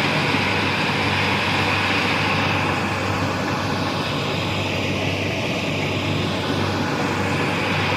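Rice combine harvester running steadily: a constant engine hum under an even wash of machinery noise.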